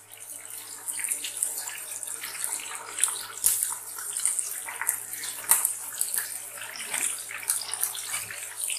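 Whole marinated chicken deep-frying in hot oil in a karahi, with steady sizzling and crackling. Several sharp clicks come from tongs and a slotted spatula knocking against the pan as the chicken is turned.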